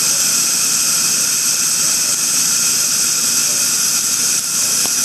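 Steady, loud, high-pitched hiss of dental equipment running during a laser gingivectomy, like suction or air flow at the chair.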